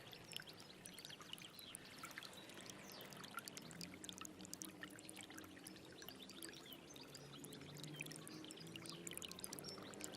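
A small stream of water trickling and gurgling quietly, with many quick little splashes and bubbling notes.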